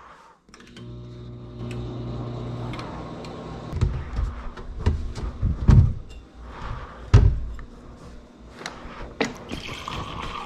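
A microwave oven hums steadily after being started. Then come several heavy thuds and knocks as a kitchen cabinet is opened and a drinking glass taken out. Near the end, a refrigerator's door dispenser runs water into the glass.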